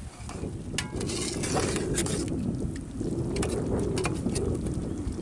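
Metal ladle stirring fish curry in a large metal pot over a wood fire, with irregular clinks and scrapes against the pot over a steady rushing noise.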